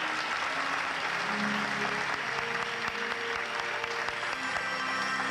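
Audience applauding steadily, with show music playing faintly underneath.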